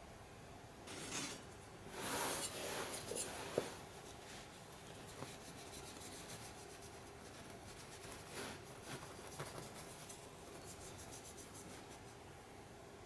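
Hands rubbing and handling the metal front plate of a WW1 pickelhaube, making soft scraping and rubbing strokes. The strokes are loudest about two to three and a half seconds in, ending with a sharp click, and fainter strokes follow later.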